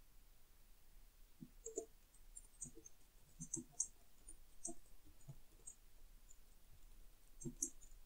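Faint, irregular keystroke clicks from typing on a computer keyboard, in quick clusters through the middle and again near the end.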